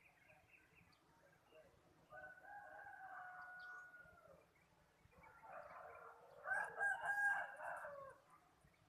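Rooster crowing twice: a long crow about two seconds in, then a louder, longer crow from about five seconds in. A brief high chirping sounds over the second crow.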